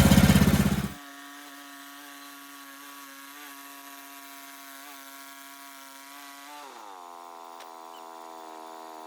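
Portable sawmill's gas engine running at a steady pitch, heard quiet and thin with no low end, dropping in pitch about six and a half seconds in as it slows.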